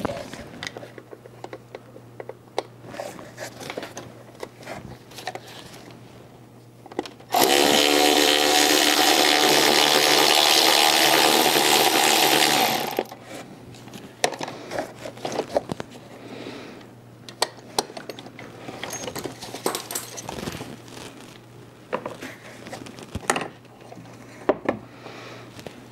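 A small electric power tool runs steadily for about five and a half seconds, starting about seven seconds in, as it spins out the last Torx screw holding the throttle body. Before and after it come light clicks and knocks of tools and parts being handled.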